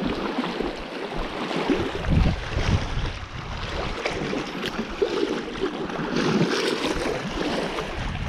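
Choppy lake waves lapping and washing against a rocky granite shoreline, with wind gusting across the microphone in low rumbles, strongest about two seconds in.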